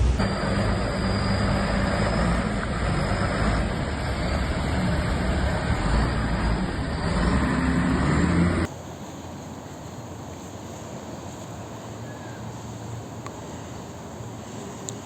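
Loud, steady rushing noise of rain and water on a flooded street with road traffic, cutting abruptly to a quieter, even rushing noise a little past halfway.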